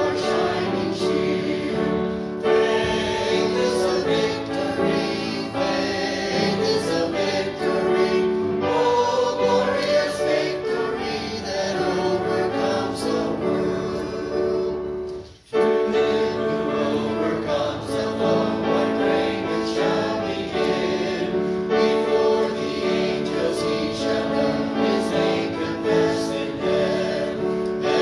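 A congregation singing a hymn together, many voices held on long notes, with a short break about halfway through.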